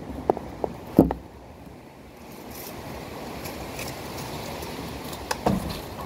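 A few short knocks and thumps, the loudest about a second in and another pair near the end, over a steady low rumble.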